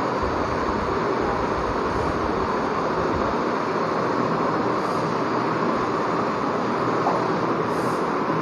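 Steady rushing background noise with no speech, an even hiss that holds the same level throughout.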